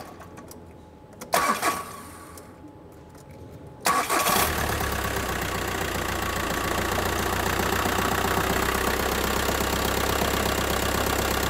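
VW T5 van engine started about four seconds in, after two brief noises, then idling steadily. The engine is cold and makes a knocking noise, which the mechanics suspect comes from a worn dual-mass flywheel.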